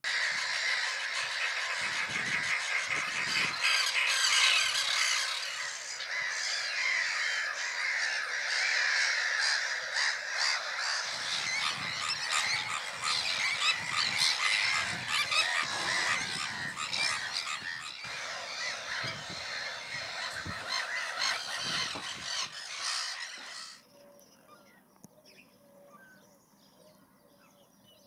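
A nesting tern colony, many birds calling harshly at once in a dense, overlapping din. It cuts off suddenly near the end.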